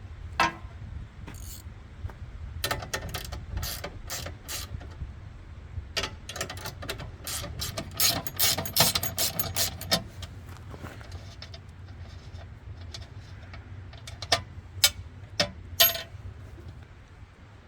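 Irregular metallic clicks, clanks and rattles as an e-bike is unloaded from a small homemade rack, in several bursts with pauses between.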